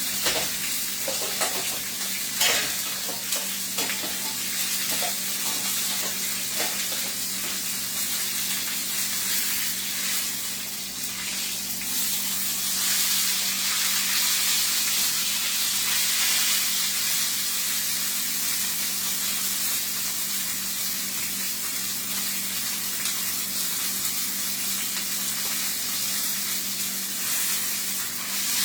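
Chuck roasts searing in hot olive oil in a pan on high heat, sizzling and spattering steadily, with a few light knocks of a utensil in the first few seconds.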